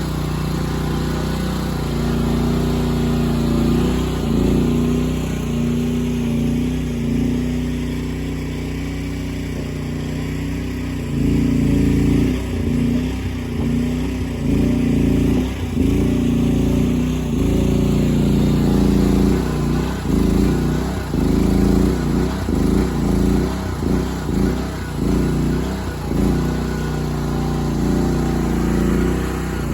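Briggs & Stratton petrol engine of a mini skid steer loader running. It holds steady at first, then from about eleven seconds in its sound dips and picks up again over and over as the load on it changes while the machine works.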